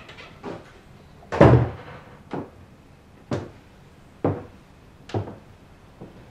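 A door shutting with a heavy thud about a second and a half in, then five lighter, sharper knocks about a second apart.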